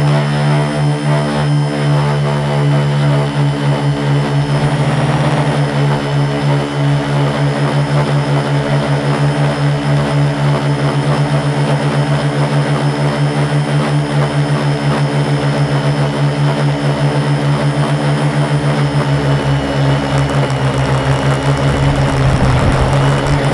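A 450-size quadcopter's four Multistar 2212 920kv brushless motors spinning 10x4.5 props in flight, heard from a camera on the airframe: a steady droning hum with a fast, even wavering beat. A low rumble swells near the end.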